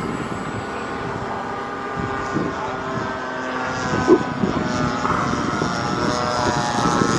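Motor and propeller of a radio-controlled Cessna 180 floatplane model in flight, an even pitched whine that grows a little louder near the end. There is a brief loud bump about four seconds in.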